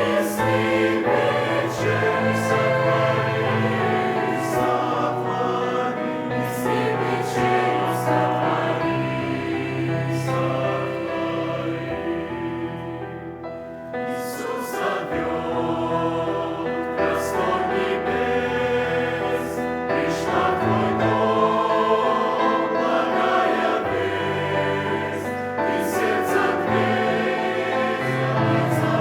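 Church choir singing a Russian hymn in sustained chords. The sound thins and drops briefly about halfway through, then swells back.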